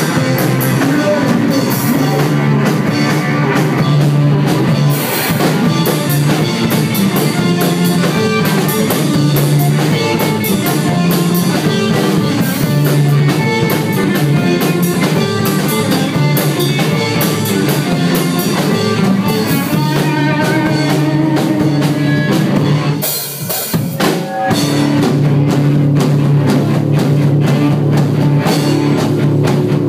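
Live punk band playing loud in a small room: drum kit, electric guitar and bass. The music stops briefly about 23 seconds in, then the band comes back in.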